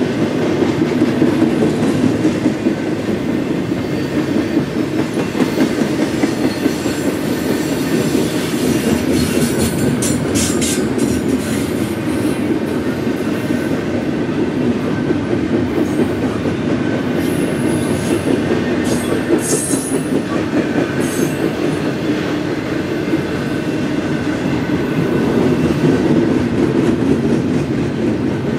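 Double-stack intermodal container train rolling past at close range: a steady rumble of steel wheels on rail with a rapid clickety-clack. Brief high-pitched wheel squeals cut in about a third of the way through and again a little past the middle.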